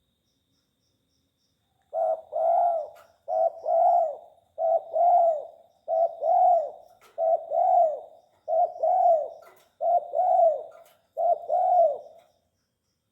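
Spotted dove (tekukur) cooing: eight repeated coo phrases, each a short note followed by a longer rising-and-falling note, about one phrase every 1.3 seconds, starting about two seconds in.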